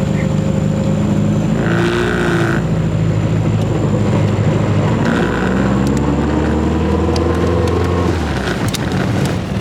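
1966 Triumph Spitfire's 1147cc four-cylinder engine running under way. Its note climbs steadily from about five seconds in, then falls away shortly before the end.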